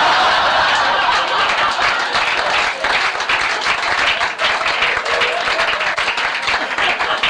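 Audience clapping in a steady round of applause.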